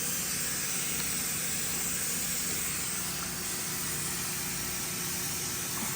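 Steady background hiss with a low, even hum underneath, unchanging throughout.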